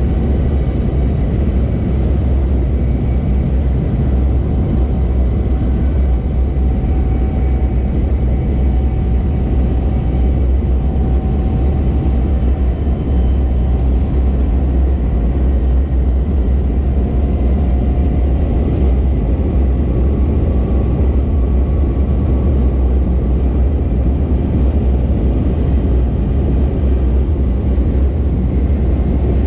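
Steady, unbroken drone of a high-wing light aircraft's engine and propeller in level flight.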